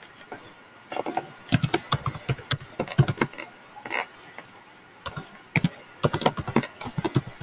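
Typing on a computer keyboard: two quick runs of key clicks, the first about a second in and the second near the end, with a short pause between them.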